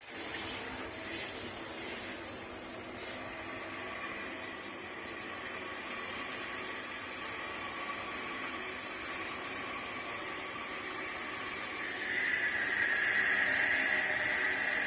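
Steady hiss of a water spray washing the dirty blower fan of a ducted air conditioner, over a low motor hum. A higher whine joins about twelve seconds in.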